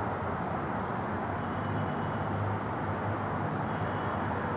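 Steady jet engine rumble from a Boeing 757 on its landing approach with gear down, heard from the ground as the plane descends out of sight.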